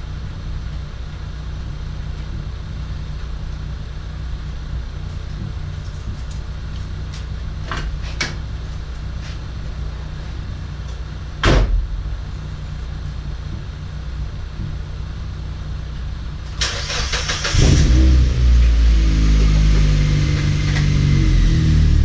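Car door shutting with one sharp knock about halfway through, then the NB Mazda Miata's four-cylinder engine cranks over on the starter near the end, catches after about a second and settles into a loud, steady idle.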